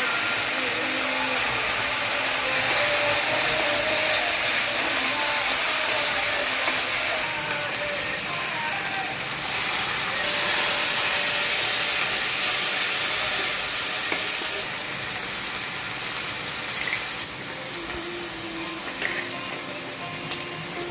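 Food frying in hot oil in a pan: a steady sizzle that grows louder about halfway through and eases off near the end.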